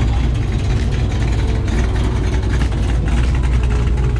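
Car engine running with a steady low rumble.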